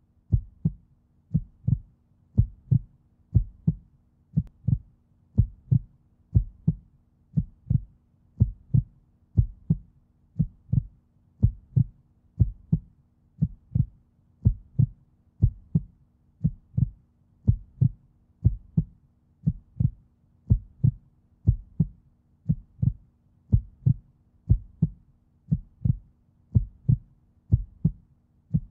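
Heartbeat sound effect: steady low double thumps, lub-dub, about one and a half beats a second, over a faint low hum.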